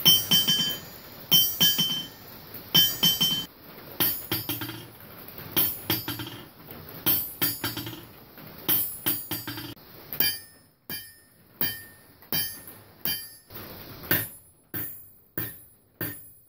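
Hammer strikes on a piece of railroad track used as an anvil, repeated about every three-quarters of a second. The first few ring with a high metallic tone while the track sits on a wooden stump; after a few seconds, with the track mounted on a damping stand, the strikes are short, dull clanks with the ring deadened.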